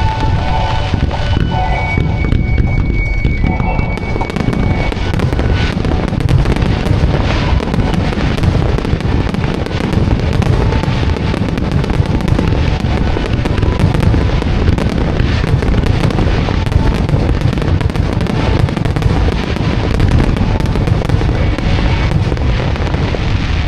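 A dense musical fireworks barrage (starmine) of many shells bursting in quick succession: continuous booming with crackling on top. Music from the show is heard underneath, plainest in the first few seconds.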